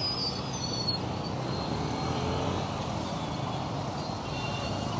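Street traffic dominated by boda boda motorcycle taxis passing close, their small engines running in a steady rumble with road noise.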